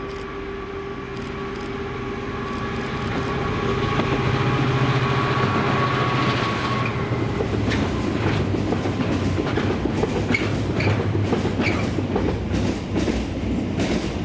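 A Class 66 diesel-electric freight locomotive, with a two-stroke V12 engine, passes at speed; its engine drone builds over the first few seconds. About halfway through, the train's wagons follow, clattering with a rapid run of wheel clicks over the rail joints.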